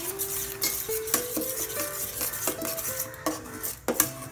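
A long metal spatula stirring and scraping through thick jaggery syrup in a stainless steel pot, mixing in a spice powder, with irregular clinks of the spatula against the pot's sides and bottom.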